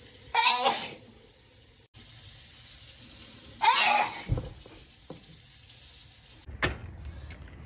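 A person sneezing repeatedly in a sneezing fit: two full voiced sneezes about three seconds apart, then a shorter, sharper one near the end, over a steady hiss.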